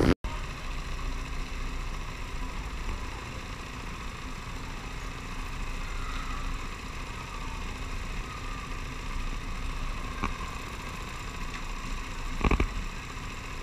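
Go-kart engines idling steadily in a row of waiting karts, with one short louder sound near the end.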